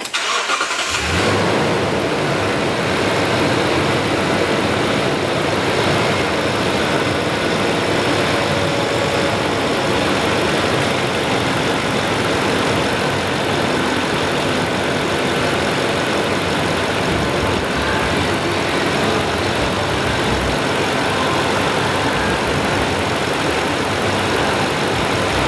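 2012 Toyota Tundra 5.7-litre V8 engine starting and then idling steadily, its first run after a PCV valve replacement.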